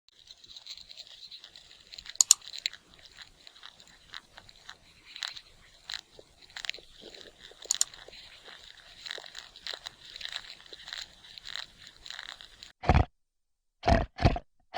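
Crunching and chewing of food: a long run of small, crisp crunches and clicks. Near the end come three or four loud, short bursts.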